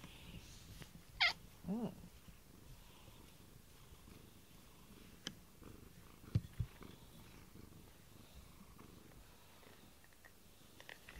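Cat purring softly while rubbing its chin and face against a silicone rubber brush close to the microphone. Just over a second in there is a brief high squeak sliding downward and then a short low sound, and a few soft clicks come around five and six and a half seconds in.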